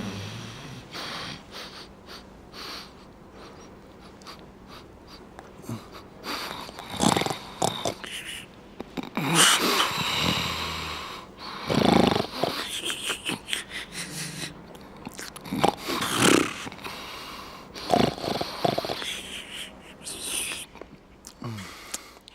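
Loud, wheezy snoring: irregular noisy breaths, soft at first, then loud ones every one to three seconds from about seven seconds in.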